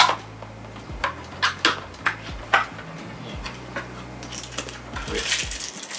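Cardboard lantern box being handled and its top flap opened: a string of short sharp taps and clicks, then a rustle about five seconds in.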